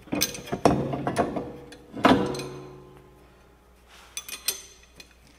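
Metal hand tools knocking against a steel brake caliper: several sharp clanks in the first two seconds, each leaving a ringing tone, the loudest about two seconds in, then a few light clicks near the end.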